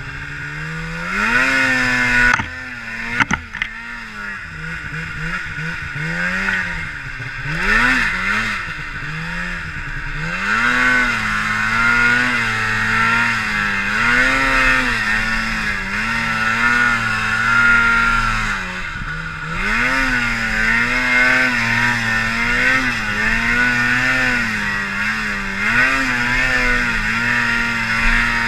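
2011 Polaris Pro RMK Assault snowmobile's two-stroke twin engine revving up and down again and again as the sled is ridden through deep powder snow. A short sharp click comes about three seconds in.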